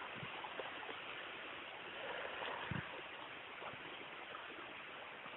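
Steady rush of a creek's flowing water, with a soft thump about halfway through.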